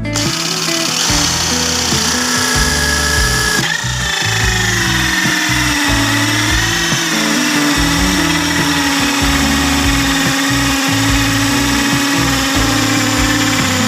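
Electric drill spinning a hole saw, cutting steadily; about four seconds in its whine drops in pitch as the saw takes load, then holds steady.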